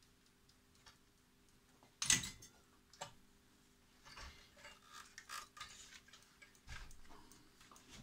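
Handling of a bench power supply's pressed-steel chassis and heatsink: a sharp knock about two seconds in, a second one a second later, then a run of small clicks and rustles as the unit and its wiring are moved.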